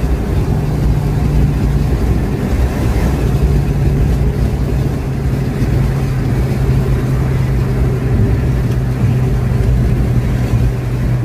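Car engine and road noise heard from inside the cabin while cruising on a highway: a dense low rumble with a steady engine drone that drops a little in pitch about two to three seconds in, then holds steady.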